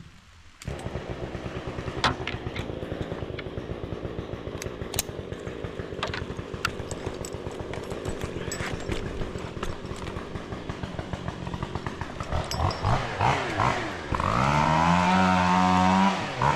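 Two-stroke chainsaw running at idle, then revved up and down and held at high revs near the end.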